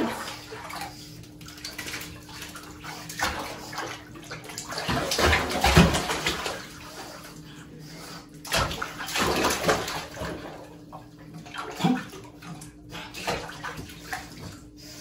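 Bathtub water sloshing and splashing in irregular bursts as a pug puppy wades and scrambles about in it, the loudest splashing about five to six seconds in.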